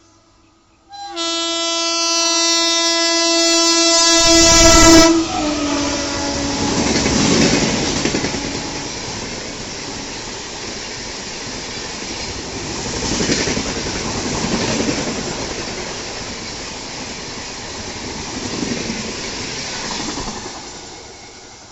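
A WAP5 electric locomotive sounds its horn for about four seconds as it approaches, the horn growing louder and dropping in pitch as the locomotive passes. The coaches then rush past with rhythmic wheel clatter, fading away near the end.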